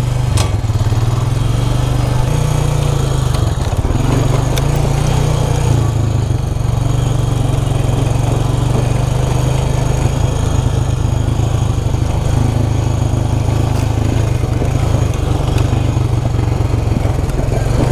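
Vehicle engine running steadily at low revs while riding down a rough dirt trail, with road noise and a few knocks from the bumpy ground.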